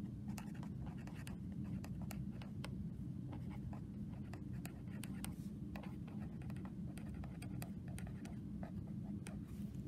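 Pen writing on lined notebook paper: a run of short, irregular scratches as the words are written, over a steady low hum.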